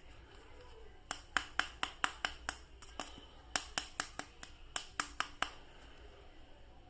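Plastic action figure being handled: a run of about seventeen sharp clicks, roughly four a second, that stops about five and a half seconds in.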